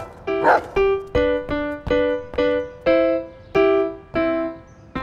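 Upright piano played in a run of struck notes, mostly two-note chords, about two a second, each one fading. A dog barks once near the start.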